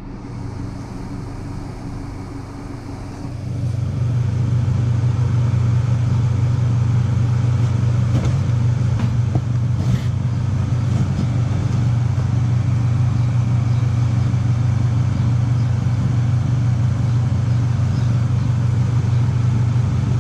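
Car engine and road noise heard from inside the cabin, a steady low drone that grows louder about three and a half seconds in and then holds level.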